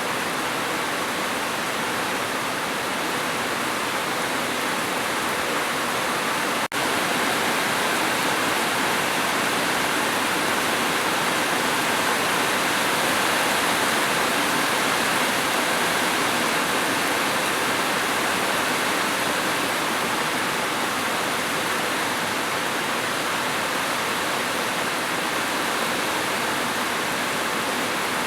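Steady rain, a dense even hiss, with a momentary dropout about seven seconds in.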